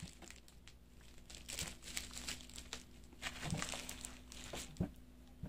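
Plastic and bubble-wrap packaging crinkling and rustling as it is handled, with soft crackles and a couple of light bumps near the end.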